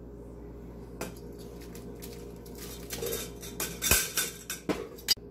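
Stainless steel cookware and utensils clinking and knocking as cooked vermicelli is tipped and scraped out of a pressure cooker's steel inner container into a pot of milk: a few separate knocks, the loudest about four seconds in, over a steady low hum.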